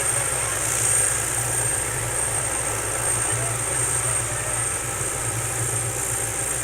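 Helicopter running with its rotor turning: a steady high whine over a fast low rotor chop.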